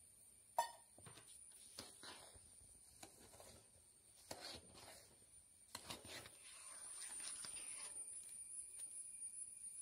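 Faint scraping and squelching of a metal spatula folding sugar into thick mashed banana in a large aluminium kadai, with one sharp knock of the spatula about half a second in and denser stirring strokes near the end.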